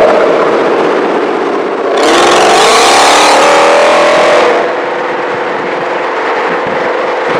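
Ford Mustang Shelby GT500's supercharged V8 running. About two seconds in it revs up hard, rising in pitch, then after a couple of seconds it eases back to a quieter steady note.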